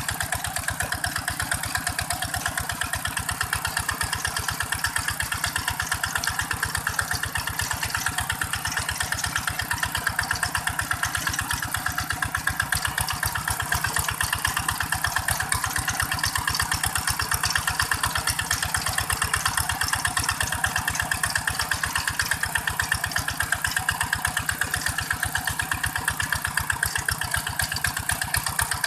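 Single-cylinder diesel engine of a two-wheel hand tractor running steadily with a rapid, even chugging beat while its cage wheels pull through a flooded rice paddy.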